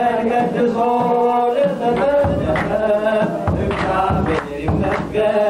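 A congregation sings an Ethiopian Orthodox hymn (mezmur) with hand clapping. Deep drum strokes from a kebero join about two seconds in.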